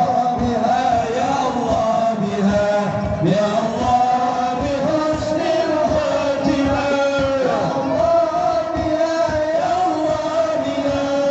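Male voices singing a sholawat chant, a slow melismatic Arabic devotional melody, over a steady run of short low beats.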